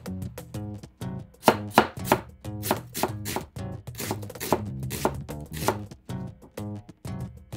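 Chef's knife slicing an onion into thin slivers on a cutting board: a steady run of sharp blade knocks on the board, about two to three a second.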